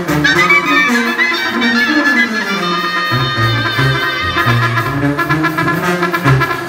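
Live Mexican banda music: clarinets carrying a sustained melody over a pulsing tuba bass line.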